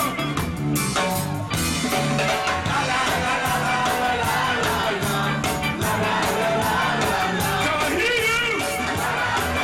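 Live ska band playing with a steady, pulsing bass beat while a man sings into a microphone, with shouts from the crowd.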